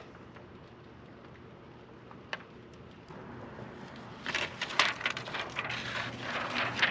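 Paper backing and transfer sheet of a vinyl decal rustling and crinkling as it is peeled back and the decal is rubbed down onto a steel door. It starts faint, with a single click, and about four seconds in becomes a run of louder crackling rustles.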